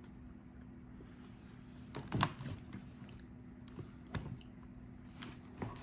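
Someone chewing a sandwich: a few soft mouth clicks and smacks, the loudest about two seconds in, over a steady low hum.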